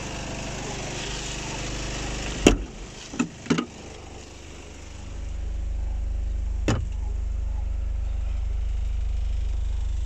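Insulated cargo door of a refrigerated van being handled: one sharp clunk about two and a half seconds in, two lighter knocks just after, and another click near the end. Under it runs the low, steady hum of the van's running machinery, which grows louder from about halfway through.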